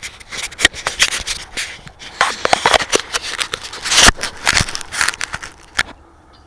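Close, irregular rustling and crackling that stops about six seconds in, loudest just after four seconds in.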